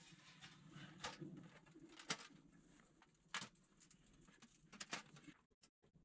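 Faint, scattered clicks and knocks of a small folding sheet-metal wood stove being unpacked and handled, over a faint low hum.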